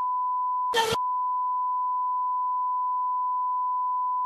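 A steady, unbroken censor bleep: one pure high tone masking the speech of a heated, swearing argument. It is cut about a second in by a short loud burst of noise.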